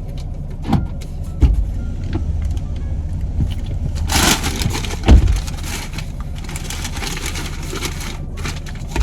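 Steady low rumble inside a car's cabin, broken by a few sharp knocks, a short rustling burst about four seconds in, and a loud thump about five seconds in.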